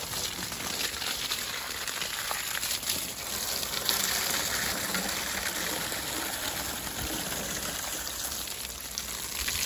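Water gushing from a garden hose, splashing onto the ground and over a dog being hosed down. It is steady throughout and gets a little louder about four seconds in.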